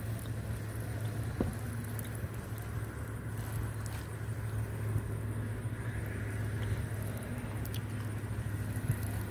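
Wind buffeting the microphone as a steady low rumble, with a few faint clicks.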